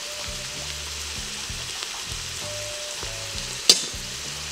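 Diced onions, carrots and freshly added minced garlic sizzling steadily in an Instant Pot on sauté, with a single sharp tap about three and a half seconds in.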